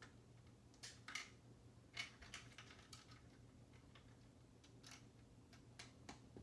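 Faint, irregular clicks of plastic Lego pieces being handled and pressed together, as a geared part is fitted into a turntable piece.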